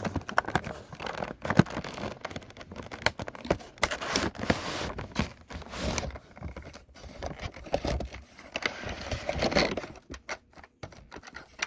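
Box and packaging being handled and pulled open by hand: irregular rustling, scraping and tapping that thins out about ten seconds in.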